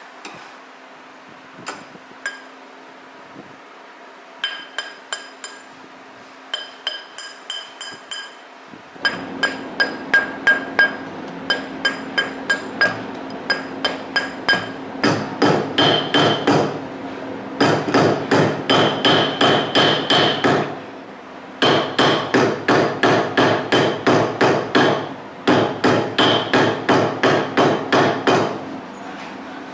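Small hammer tapping a coin being shaped into a ring, each strike with a bright metallic ring. A few light, scattered taps give way after about nine seconds to fast, even runs of about four strikes a second, broken by brief pauses.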